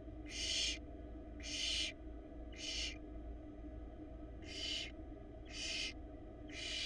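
Barn owl nestlings giving raspy hissing calls, the chicks' begging sound: six short hisses, about half a second each, roughly one a second with a pause in the middle, over a steady low hum.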